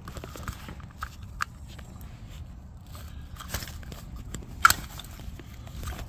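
Go-kart seatbelt buckle and latch plate being handled, giving a few scattered plastic and metal clicks and knocks; the sharpest comes a little past the middle.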